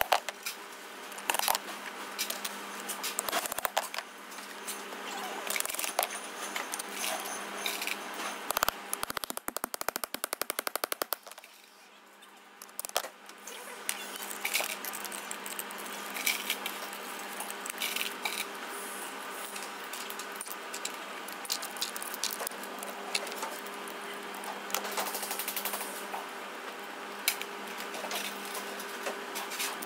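Hammer blows on a steel shaft being driven into a gearbox housing, with metal rollers and pins clinking as they are set into the housings. About a third of the way in comes a fast rattling run of strikes, followed by a brief lull.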